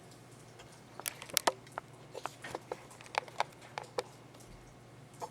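Light irregular clicks and taps starting about a second in: a screwdriver working against the friction and steel clutch plates inside a 4L60E transmission to check the clutch pack for free play.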